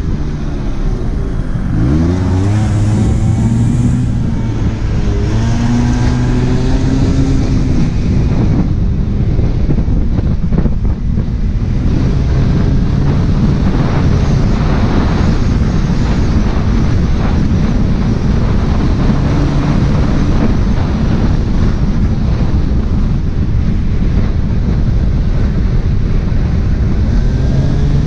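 Small scooter engine pulling away, its revs climbing steeply about two seconds in and again around five seconds, then running at fairly steady revs, under heavy wind noise on the microphone.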